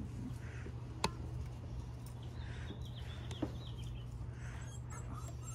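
A sharp click about a second in and a lighter one a little past the middle as the headlight housing is pressed into its bracket, over a steady low hum, with faint bird calls in the background.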